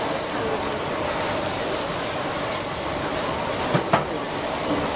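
Tiger prawns, scallops and lobster sizzling on a charcoal grill: a steady, even hiss, with two sharp clicks close together about four seconds in.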